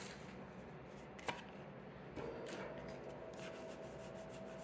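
Pokémon trading cards being slid and flicked one behind another as a freshly opened booster pack is looked through: faint, irregular soft swipes and taps, with one sharper click about a second in.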